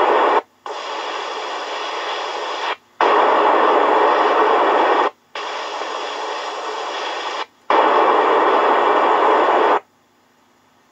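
Test-tape noise signals played through the speaker of a Unitra ZRK MK 121 mono cassette recorder: the channel phase-check sequence of five bursts, each about two seconds long with short gaps. The first burst ends about half a second in and four more follow. The second and fourth bursts, the out-of-phase ones, come out clearly quieter on this mono machine. Only faint tape hiss remains in the last second.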